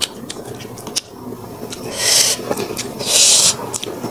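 Close-up eating sounds: wet mouth clicks and smacks, with two short, loud, airy hisses about two and three seconds in, like slurping or sharp intakes of breath.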